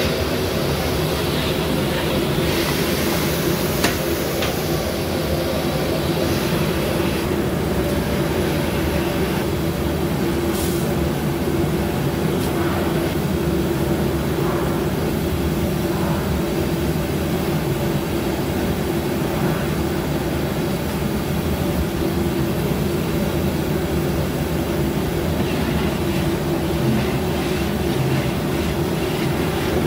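Gas burner roaring steadily under a large aluminium cooking pot.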